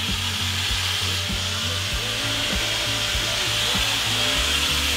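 Sandblaster blasting grit at steel with a steady, loud hiss from the nozzle, cleaning tack-welded steel plate ahead of welding.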